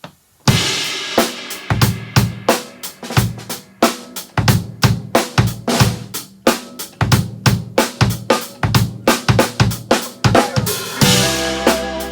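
Drum kit played solo: after a short silence it opens on a crash cymbal with bass drum, then runs through a dense stream of snare, tom and bass drum strokes with cymbal accents. About a second before the end another crash lands as sustained pitched backing music starts to come in.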